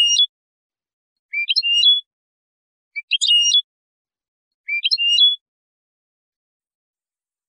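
European goldfinch song: four short, high twittering phrases about a second and a half apart, two different phrases each heard twice in turn, then a pause of about two seconds near the end.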